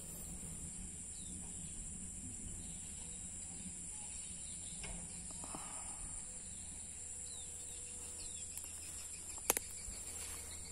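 Rural outdoor ambience: a steady high-pitched insect drone, with a few faint bird chirps over a low hum. A single sharp click comes near the end.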